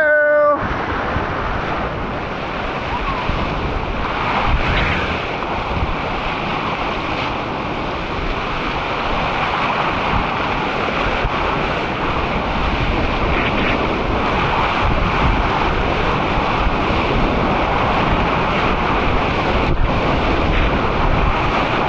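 Rushing whitewater of a big river at high flow, a steady loud rush, with wind buffeting the microphone.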